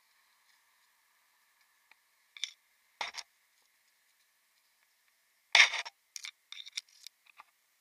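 Short, irregular scrapes and rustles of yew branches and foliage brushing against the climber and his camera, the loudest just over halfway through, followed by a quick scatter of smaller ones.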